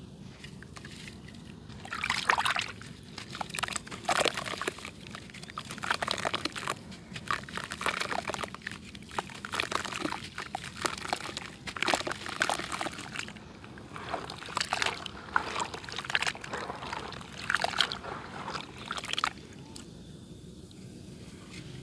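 Red dirt clay being crunched and crumbled, a run of crisp crackling and pattering bursts that starts about two seconds in and stops near the end.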